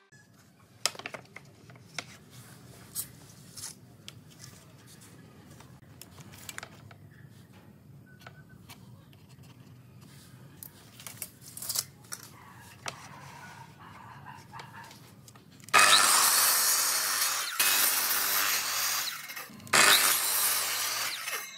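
Light knocks and clicks of wood being handled and marked. About sixteen seconds in, a sliding compound miter saw runs and crosscuts pallet boards in three loud stretches with short breaks between them.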